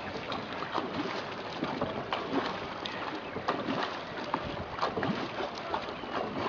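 Wooden shikara being paddled across calm lake water: irregular paddle splashes and drips over a steady wash of moving water.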